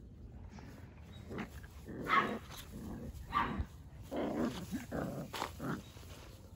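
Five-week-old Australian Shepherd puppies giving a string of short play growls and little barks as they wrestle, starting about a second and a half in.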